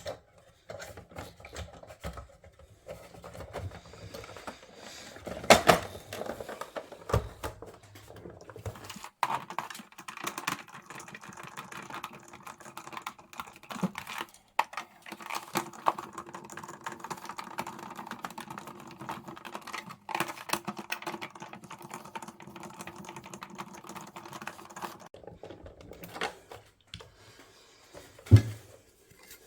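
Dense light clicking and tapping from parts of a boombox being handled and worked on at a bench, with a sharp click about five seconds in and a louder knock near the end.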